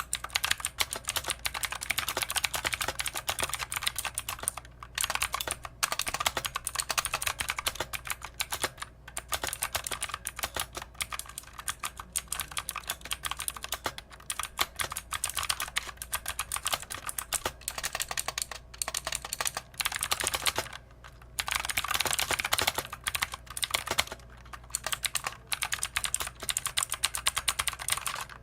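Fast, continuous typing on a Drevo Tyrfing budget mechanical keyboard, a dense run of key clicks broken by a few brief pauses.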